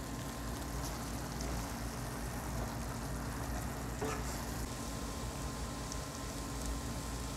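Chicken liver and spice masala frying in a steel pan: a steady soft sizzle over a low hum, with one light knock of the wooden spatula against the pan about four seconds in.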